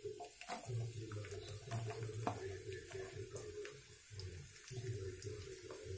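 Chopped shallots sizzling in hot sesame oil in a frying pan, a steady hiss with irregular sharp pops and crackles as more onion is tipped in.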